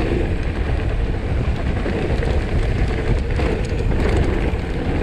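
Mountain bike riding a dirt trail, heard through a helmet- or bike-mounted action camera: a steady low rumble of wind buffeting the microphone and tyres on the ground, with a few light clicks and rattles from the bike.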